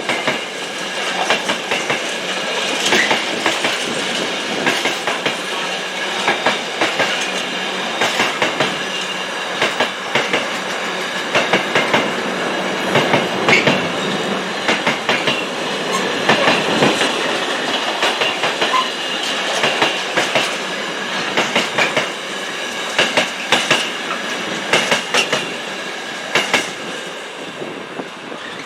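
A train passing close by, its wheels clicking in close pairs over rail joints, with a steady high-pitched wheel squeal. The sound eases off near the end as the train clears.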